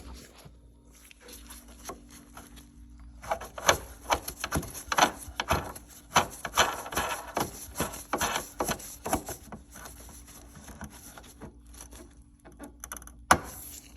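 Refrigerator's adjustable leveling leg being turned underneath the cabinet: a run of short scraping clicks, then one sharp knock near the end.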